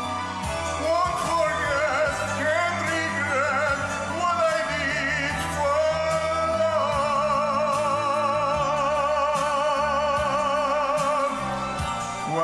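Ballad music with a sung melody over an accompaniment. The voice moves through a wavering phrase, then holds one long note with a wide vibrato through much of the second half.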